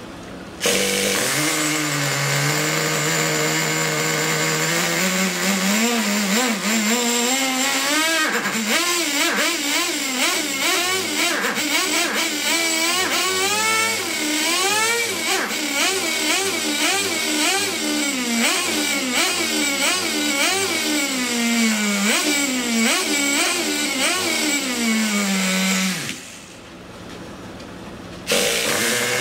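Traxxas Nitro 4-TEC 3.3's TRX 3.3 two-stroke glow-fuel engine running and being revved over and over with the transmitter throttle, its pitch rising and falling in quick surges. About 26 s in it drops back to a quiet idle for a couple of seconds, then picks up loudly again near the end.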